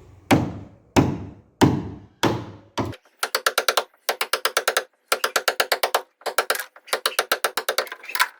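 About five hard knocks, roughly half a second apart, each ringing off, then short runs of rapid clicking, about ten clicks a second, stopping and starting.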